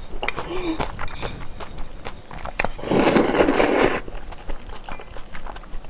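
Close-miked eating sounds of spicy seafood kalguksu noodles: small wet chewing clicks throughout, with one loud slurp lasting about a second, about three seconds in.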